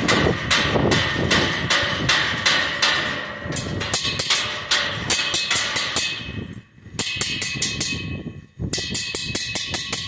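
Rapid, repeated hammer blows on steel with a metallic ring, about three strikes a second and quickening near the end, with two brief pauses.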